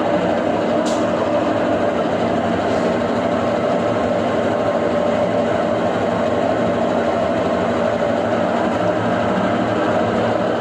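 Brastemp BWK11 washing machine running with a steady mechanical drone and hum, with a single light click about a second in.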